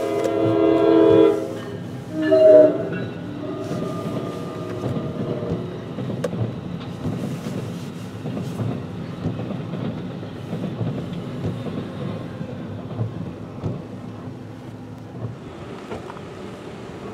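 A commuter train's horn sounds a long chord and then a shorter blast, the loudest sound, heard from inside a car. Then the train's double-deck NJ Transit MultiLevel coaches roll past with a steady rumble and clicking wheels, easing off near the end.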